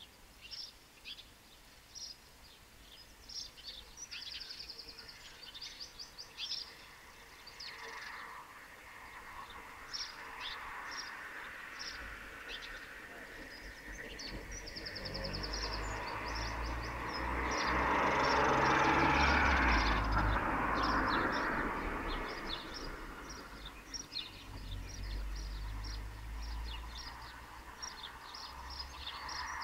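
Small birds chirping repeatedly, short high calls throughout. A vehicle passes, its rumble and tyre noise swelling to the loudest point about two-thirds of the way through and then fading.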